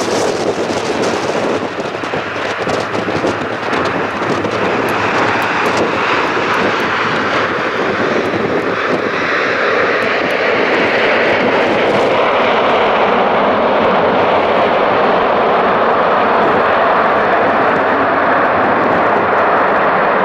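McDonnell Douglas MD-11 airliner's jet engines running at high thrust on a wet runway: loud, steady jet noise that swells about halfway through and then holds.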